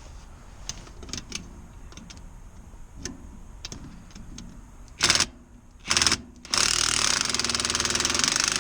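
Cordless power driver loosening a tight fastener on a blower motor: two short bursts, then a steady run of about two and a half seconds near the end, after some light clicks and knocks of handling.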